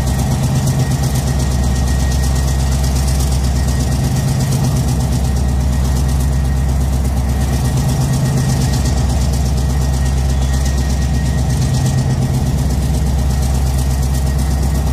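PzH 2000 self-propelled howitzer's V12 diesel engine idling steadily, its low running swelling slightly every few seconds, with a thin steady high whine over it.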